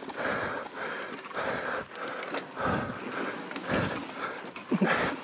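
A mountain biker's heavy breathing during a slow, hard climb, panting in and out about once a second. A couple of dull knocks come about halfway through.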